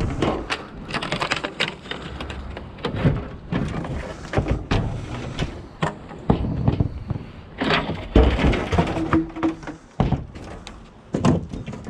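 Irregular knocks, clatters and thumps of scrap PVC door and window frames being handled and loaded into a van.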